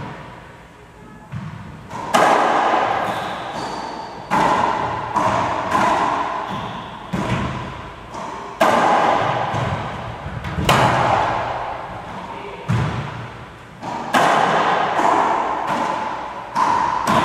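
Racquetball rally: the hollow rubber ball smacking off racquets, the court walls and the floor, about a dozen sharp hits, each with a long echo in the enclosed court.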